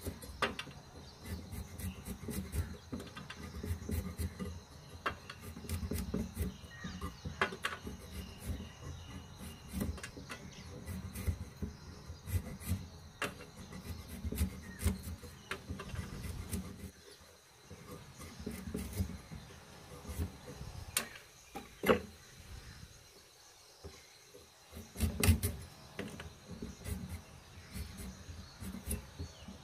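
Skin of firm green ambarella being shaved off against a fixed curved iron blade: a rapid, irregular run of small crisp scraping and slicing clicks, with a couple of louder knocks about 22 and 25 seconds in.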